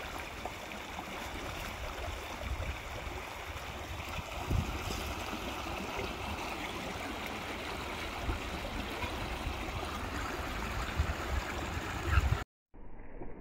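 Shallow, rocky Kosi river rushing and gurgling over stones in a steady wash, with a few low thumps on the microphone, the loudest near the end. The sound then cuts off abruptly, giving way to a quieter, duller background.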